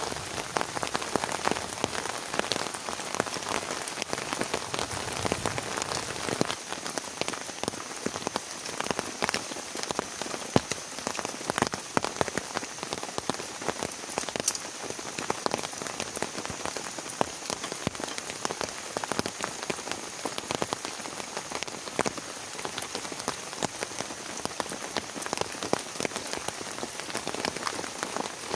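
Heavy rain falling steadily, a dense hiss dotted with many sharp individual drop hits.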